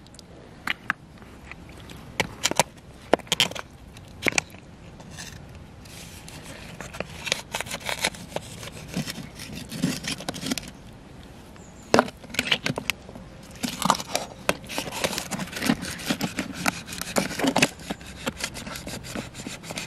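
Knife blade scraping and clicking against the shell of a large freshwater pearl mussel as it is worked into the gap to pry the shell open. Irregular sharp clicks and short scrapes, the loudest about twelve seconds in.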